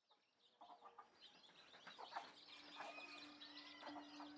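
Faint rural ambience fading in from silence: small birds chirping and chickens clucking. A low steady tone comes in about halfway.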